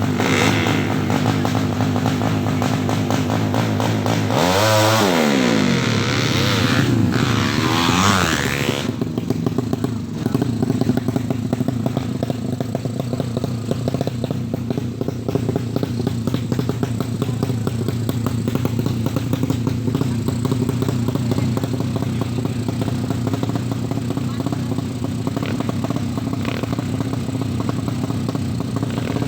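Engine of a Suzuki Satria FU drag bike bored out to 200 cc, running with a choppy note likened to a helicopter. Its pitch sweeps down and up twice between about four and nine seconds in, then it settles into steady running.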